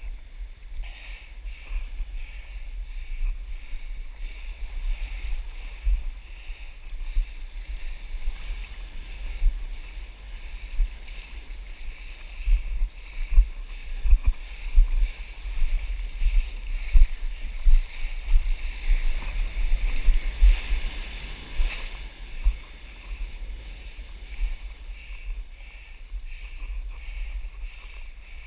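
Shallow ocean surf sloshing and lapping around a wading angler, with frequent low thumps of water and wind buffeting against the microphone.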